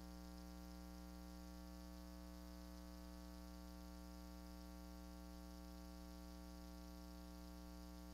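Near silence: a steady, low electrical hum with a ladder of overtones and nothing else.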